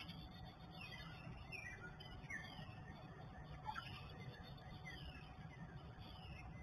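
Faint dawn bird chorus over a low steady hum. One bird, a northern cardinal, repeats a down-slurred whistle about every two-thirds of a second, with other songbirds calling faintly.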